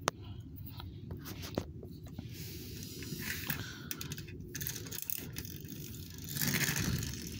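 Handling noise: scattered light clicks and two longer scraping sounds, about two seconds in and again near the end, the second the loudest, as toys are moved about on a wooden floor.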